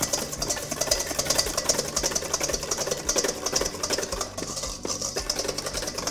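Wire balloon whisk beating egg yolks and granulated sugar in a stainless steel bowl: quick, even strokes of the wires scraping and clicking against the metal.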